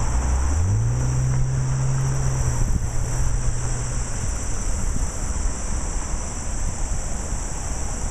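Rushing floodwater and wind on the microphone, with a vehicle engine on the nearby road whose hum rises in pitch about a second in and fades out around halfway.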